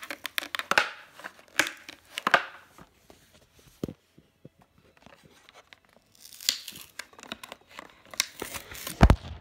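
Cardboard-and-plastic blister packaging of a toy engine being torn and crinkled by hand in irregular bursts of crackling, quieter for a few seconds in the middle. A loud dull thump comes near the end.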